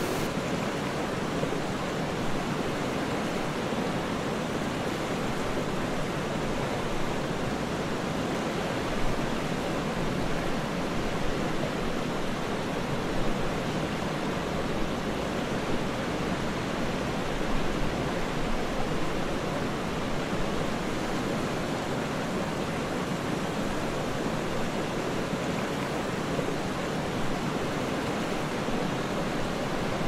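Jungle river water rushing steadily over rocks.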